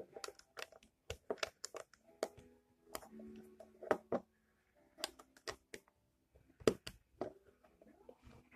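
Plastic Lego bricks clicking and snapping as they are handled and pressed onto a model, with light taps on a wooden tabletop. The clicks come irregularly, a few at a time, the loudest a little before seven seconds in.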